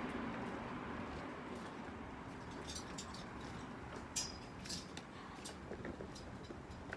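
Quiet steady background noise with a few light clicks and ticks near the middle, and no heavy blows.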